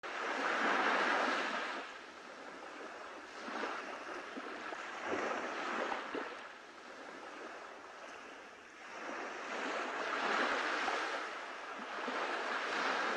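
Sea waves washing onto a shore, rising and falling in slow swells every few seconds.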